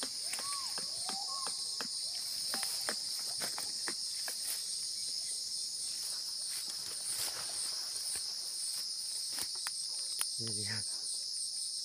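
Snared wild boar clacking its teeth in anger: sharp, irregular clicks scattered throughout, over a steady high drone of forest insects.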